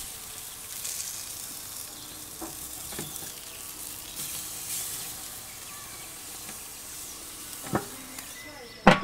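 Steaks sizzling steadily on a hot gas grill's grate, with a few sharp clicks of metal tongs against the grill, the loudest near the end.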